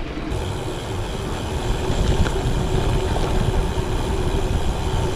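Gravel bike tyres rolling on a gravel track, with wind buffeting the handlebar-mounted microphone: a steady rumbling hiss.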